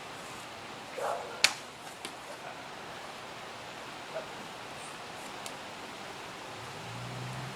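A bow shot: a brief rustle of the draw, then the sharp snap of a recurve bowstring releasing an arrow about a second and a half in, followed by a few faint distant knocks.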